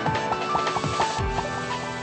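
Background music: an electronic track with short repeating melodic notes over held tones and a falling bass slide.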